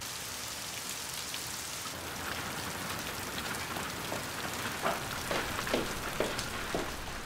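Steady rain falling, with a few sharper taps in the second half.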